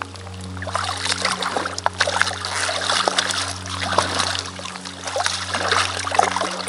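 Water splashing and trickling around hands and a steelhead being released into a shallow creek: a busy run of small splashes that starts about a second in, over a steady low hum.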